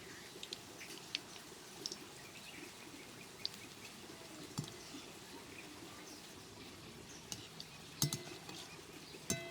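Scattered light clinks and taps of dishes and utensils, with two louder clatters near the end.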